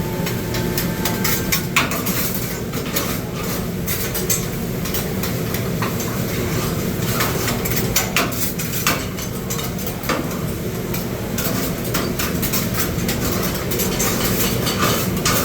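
Cooks' utensils scraping and clacking on a large Mongolian-style flat-top grill, with food sizzling. The clacks come in quick, irregular bursts over a steady hiss.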